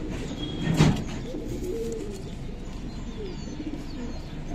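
Domestic pigeons cooing, with repeated low warbling notes, and one short, loud rustle about a second in.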